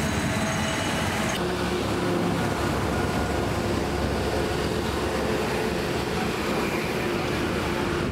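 Steady low engine rumble of vehicles on the road, with rapid pulsing and a few steady tones over it.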